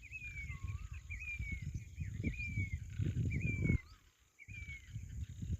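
Birds calling outdoors: a short falling whistle about once a second, some with a lower wavering note. Wind buffets the microphone with an irregular low rumble that drops out briefly about four seconds in, over a steady high hiss.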